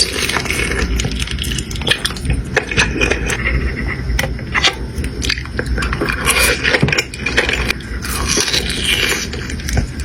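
Someone eating soup dumplings close to the microphone: wet chewing and mouth sounds with many small clicks.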